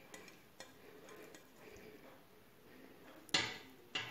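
Faint kitchen handling, then two short knocks about half a second apart near the end, as minced-meat filling is put into mini pizza dough cups on a baking tray.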